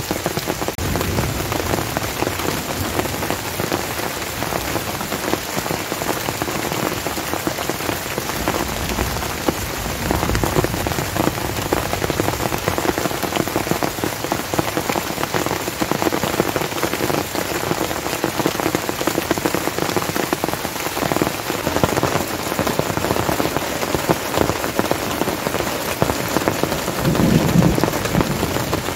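Heavy rain pouring steadily on forest leaves and tents, a dense patter of drops with a few slightly heavier spells.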